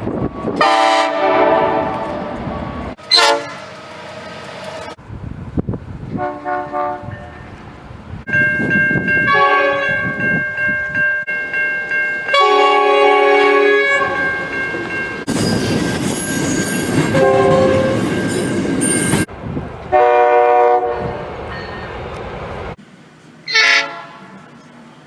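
Train horns sounding in a quick series of separate clips joined by abrupt cuts. Some are short toots and some are held blasts lasting a few seconds. Between them is the rolling noise of passing trains on the rails.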